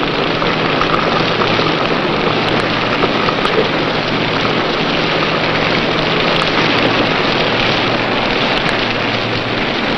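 Steady heavy rain of a squall, an even hiss, with a low steady hum underneath.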